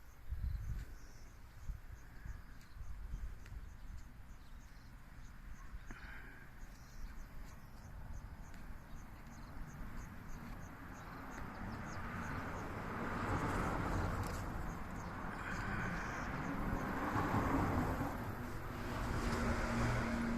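Insects chirping steadily while a vehicle's engine and running noise approach, growing louder over the second half.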